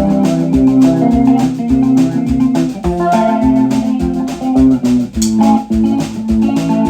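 Background music with a steady beat and plucked, pitched notes.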